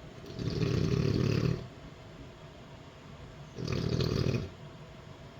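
A woman snoring in her sleep: two loud snores about three seconds apart, the first a little over a second long, the second shorter.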